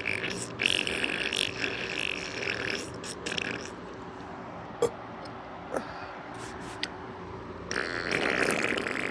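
A person burping: a long, drawn-out burp over the first three and a half seconds, a quieter pause with a few small clicks, then another burp starting near the end.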